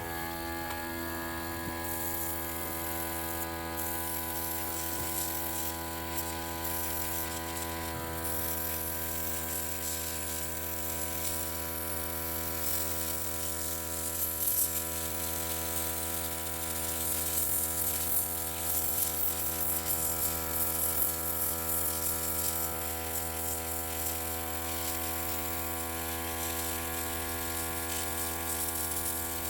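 Small airbrush compressor motor running with a steady buzzing hum, and air hissing from the airbrush as paint is sprayed.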